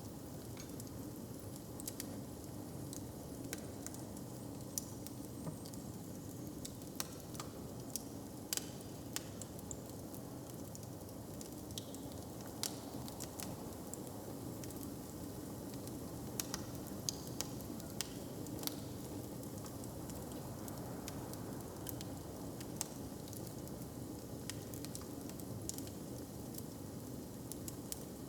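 Wood fire crackling: irregular sharp pops and snaps, a few every second, over a steady low rumble.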